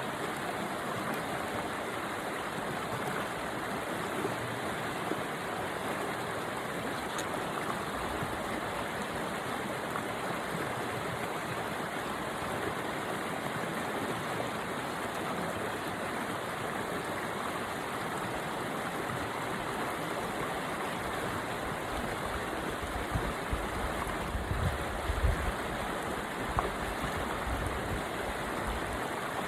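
River water rushing steadily over rocks. Near the end come a few low bumps, like wind or handling on the microphone.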